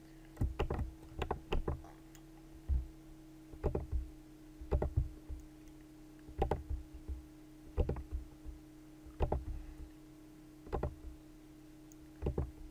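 Computer mouse clicks, about a dozen, irregularly spaced and some in quick pairs, over a faint steady electrical hum.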